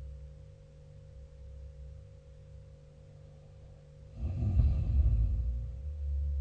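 A sleeping person snoring: a quiet pause, then about four seconds in one loud, low snore lasting about two seconds, with the next beginning near the end. A faint steady hum runs underneath.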